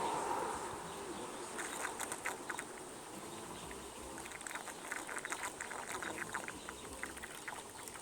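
Water poured into a car's sunroof drain, heard as faint, irregular splashes and drips to test whether the repaired drain hose carries it away without leaking.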